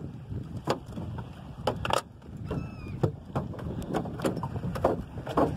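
Irregular knocks and clatters on a small fishing boat as a freshly caught fish and the tackle are handled, over a steady low rumble. A brief wavering squeak sounds about two and a half seconds in.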